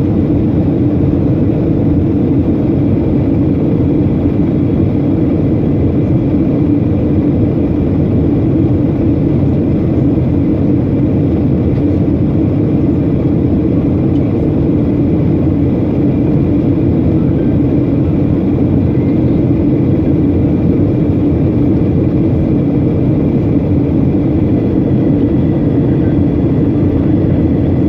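Steady low drone of jet engines and rushing air heard inside the cabin of a Boeing 737 airliner descending on approach to land.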